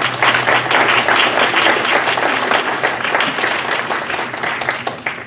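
Audience applauding at the end of a talk: many hands clapping together, stopping near the end.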